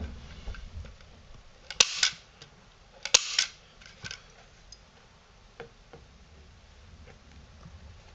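Hand-held manual staple gun firing twice, just over a second apart, each a sharp snap as a staple is driven through the canvas into the wooden stretcher bar, followed by a few faint clicks.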